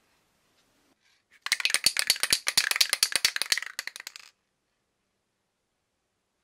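Aerosol spray-paint can shaken by hand, the mixing ball inside rattling rapidly for about three seconds, then stopping.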